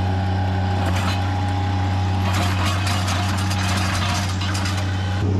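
Bobcat mini track loader with a trencher attachment, its engine running steadily as a low hum. Over it comes a noisy clatter of the trencher chain cutting through soil and roots, heaviest in the middle seconds.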